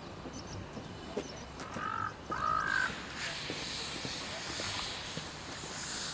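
Two harsh crow caws about two seconds in, then from about three seconds on a steady high hiss of steam escaping low down from a small steam tank locomotive.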